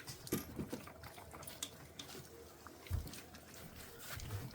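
Golden retriever puppies eating from bowls: scattered small clicks and smacking sounds of lapping and chewing, with a soft thump about three seconds in.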